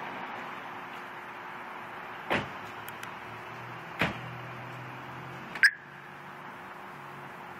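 Steady background hiss with a faint low hum, broken by three sharp knocks about a second and a half apart, the last the loudest.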